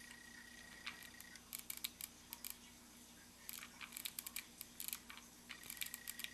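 Hot glue gun being worked over a wired battery harness: clusters of small sharp clicks and ticks. Under them runs a faint steady high whine that stops about a second and a half in and comes back near the end.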